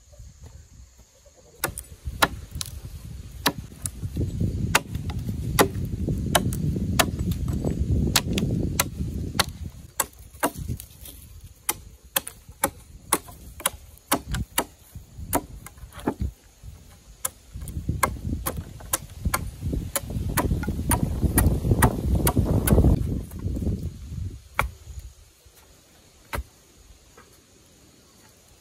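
Repeated sharp chopping or striking blows, irregular, about one or two a second. Two long stretches of low rumble run under them.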